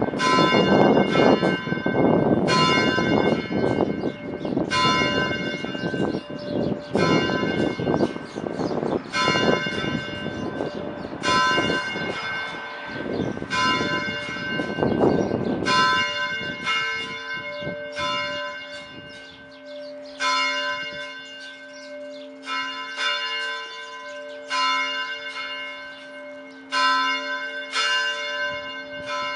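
A single church bell rung by hand in a steady rhythm, each stroke ringing on over the last. A rumbling noise under the strokes dies away about halfway through, leaving the bell's low hum sounding between strokes.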